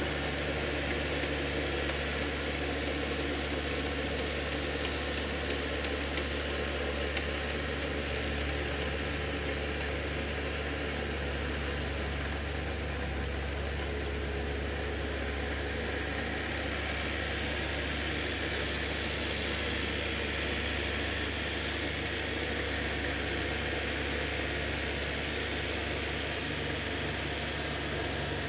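Small farm tractor's engine running at a steady pace as it pulls an implement through a flooded rice paddy: an even low drone.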